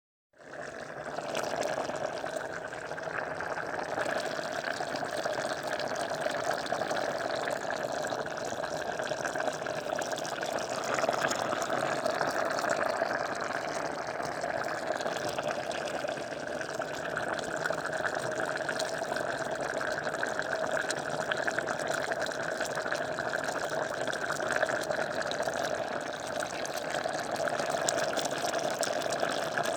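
A pot of rice boiling: water bubbling steadily in the pot, fading in over the first second and then holding even.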